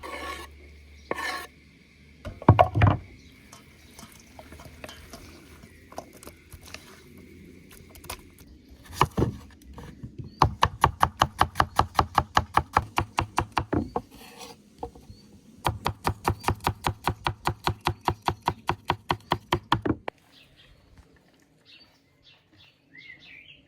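A knife chopping fast on a cutting board, about seven even strokes a second, in two long runs, after a few single knocks of kitchenware. A few faint bird chirps come near the end.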